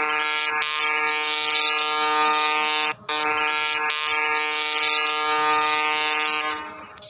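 Ship's horn sound effect: two long, steady blasts of about three seconds each, the second fading away near the end.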